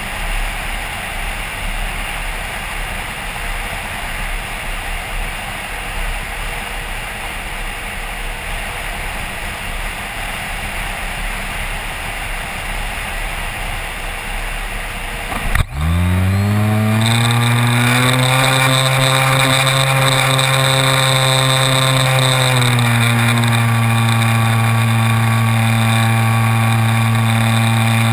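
Air rushing past the camera on a Multiplex Xeno RC flying wing as it glides. About halfway through, the plane's electric motor and propeller start suddenly, spin up in a quick rising whine and hold a steady pitch, which dips slightly near the end as the throttle eases.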